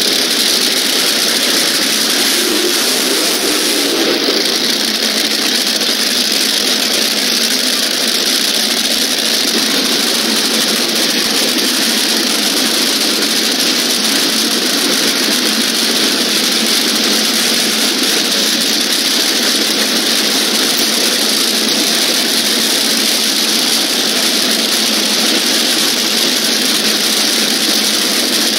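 Drag-racing car engines running steadily: a loud, even, unchanging noise with no revving or sudden events.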